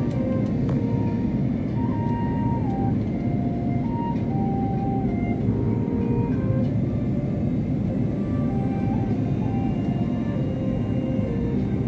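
Steady cabin noise of an Airbus A330-300 airliner descending: a dense, even rumble of engines and rushing air. Faint thin tones above it shift between a few pitches every second or so.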